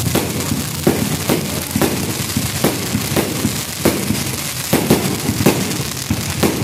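Aerial fireworks bursting overhead: a quick, irregular run of bangs and pops, several a second, over a steady crackling hiss.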